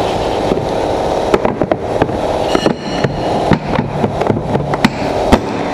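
A string of sharp plastic knocks and clicks as the ATV's seat is lowered and pressed shut, over a steady mechanical hum.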